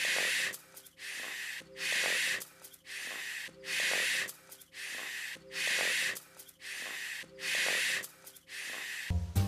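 Heavy rhythmic breathing: a loud hissing breath about every two seconds with a quieter breath between, repeating evenly like a loop.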